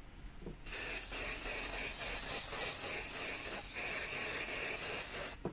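Aerosol hairspray can sprayed in one long continuous hiss, starting suddenly about a second in and cutting off sharply near the end.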